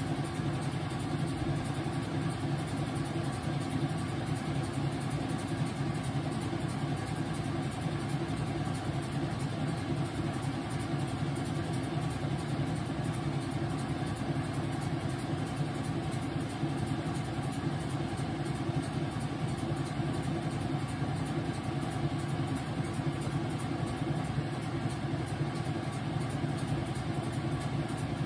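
Whirlpool washing machine running with a steady, even motor hum.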